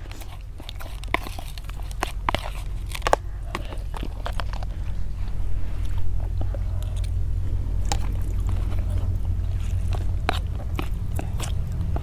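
Two people eating: chewing close to clip-on microphones, with scattered clicks and scrapes of spoons on plastic plates, over a steady low rumble.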